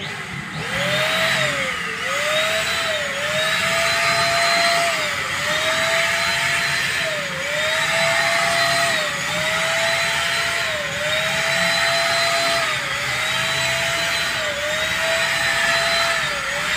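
Multipro ESP-800JY electric spray gun running while spraying wall paint: a steady motor whine over a broad hiss of air and paint. The whine sags briefly and recovers about every one and a half to two seconds.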